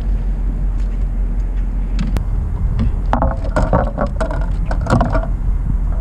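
Wind buffeting the camera microphone in a steady low rumble, with a few sharp clicks and a rough rattling burst about three to five seconds in.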